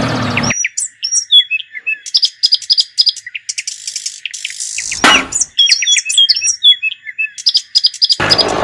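Birds chirping: many quick, short high calls, with a brief burst of noise about five seconds in.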